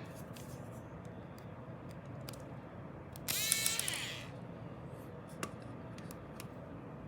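Small countersunk screw being driven with a screwdriver into a 3D-printed knife scale, with a few light clicks and a brief high squeak of about a second about three seconds in.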